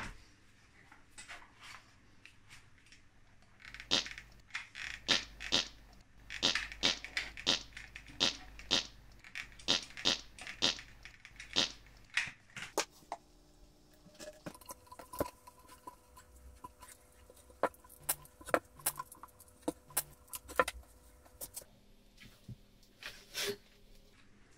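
Handling noises of PVC sewer-pipe fittings and a hot glue gun: a quick run of sharp clicks and taps, then about eight seconds of squeaky tones with scattered clicks as a plastic tee fitting is glued and worked onto the post.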